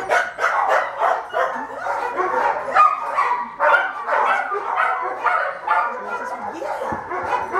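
Small dog barking repeatedly in quick, short barks.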